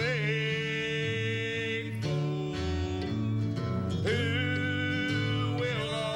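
Small country-gospel band playing: an electric bass walks through steady notes under mandolin and guitar. Long held melody notes slide up into pitch twice, once at the start and once about four seconds in.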